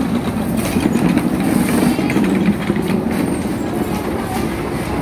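Steady roadside street noise: a constant, dense rumble of traffic and activity with no single event standing out.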